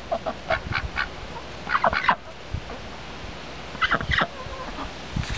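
Chickens and ducks in a pen giving short calls in three brief clusters, about half a second, two seconds and four seconds in.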